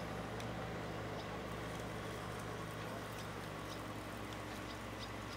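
Light rain pattering as scattered, irregular faint ticks over a steady low background noise.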